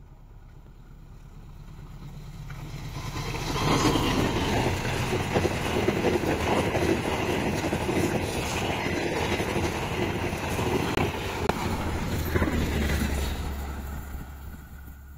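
A diesel-hauled express passenger train passing at speed. Its approach rises for about four seconds, then the carriages rush by with wheels clattering over the rail joints for about nine seconds, and the noise fades with a low rumble as the train moves away.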